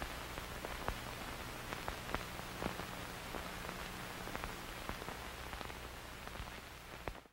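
Steady static hiss over a low hum, with irregular crackling clicks scattered through it. It starts and cuts off abruptly.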